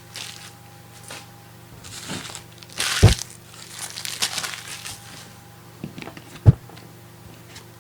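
Crinkling plastic packaging and trading cards being handled, busiest in the middle, with two sharp knocks, one about three seconds in and a louder one near the end.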